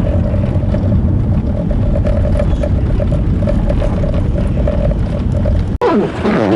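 Steady rumble of a vehicle driving through a blizzard, with road and wind noise. Near the end it cuts off abruptly and gives way to a different sound that falls in pitch.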